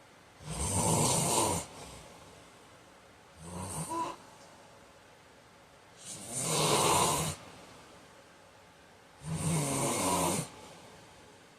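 A man snoring in his sleep: four snores about three seconds apart, the second one shorter and weaker than the rest.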